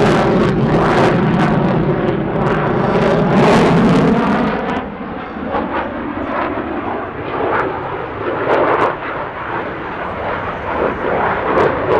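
F-16 Fighting Falcon jet engine at display power, a loud rumbling roar as the fighter passes, easing off by several decibels after about five seconds as it moves away.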